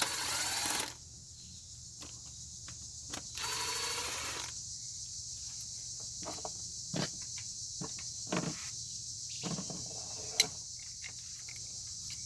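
Crickets chirping steadily, with scattered light clinks and knocks of hand tools and engine parts being handled; the sharpest click comes near the end.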